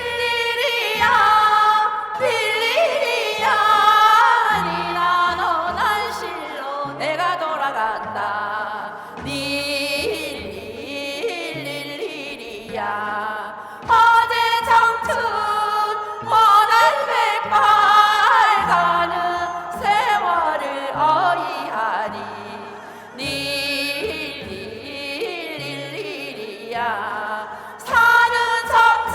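Korean folk song (minyo) sung with wavering, sliding vocal lines over instrumental accompaniment.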